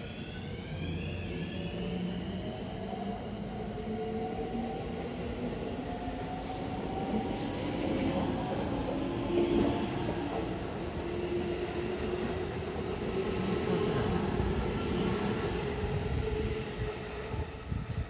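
JR West 225/223-series electric commuter train pulling out of the station: the traction motors whine and rise slowly in pitch as it gathers speed, while the wheels rumble and squeal on the rails as the cars go by.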